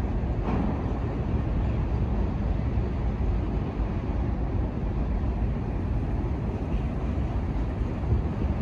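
Freight train cars rolling past, a steady low rumble of steel wheels on rail.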